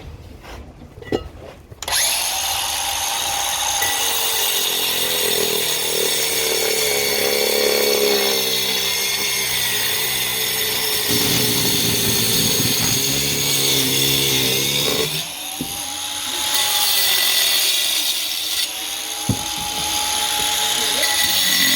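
Power saw cutting through brick. It starts up about two seconds in and runs loud and gritty, its motor note sagging and recovering as the blade bites under load, with a short easing-off about two-thirds of the way through before it cuts on.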